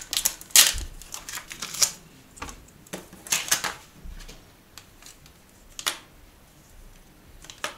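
Scattered clicks and short rattles of a folding plastic corner shelf and its metal wire legs being handled and unfolded, with a cluster of clatter a little after the middle and one last click near the end.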